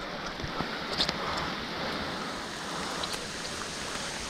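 Steady rain falling, an even hiss, with a few faint ticks of drops about a second in.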